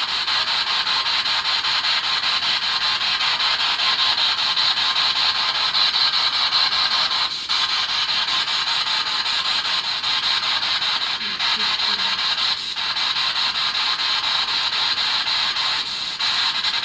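Spirit box sweeping through radio stations: a steady hiss of radio static chopped by a fast, even flutter from the scanning, with a few short dropouts.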